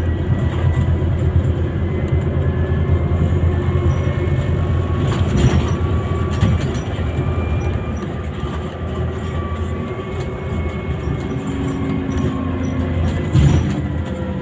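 Interior noise of a Scania Citywide CNG city bus under way: a steady low engine and road rumble with faint whines above it, and a single bump near the end.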